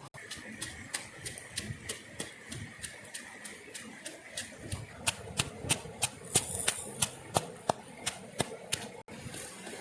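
Rapid, even chopping strokes, about three a second, growing louder and sharper from about halfway through.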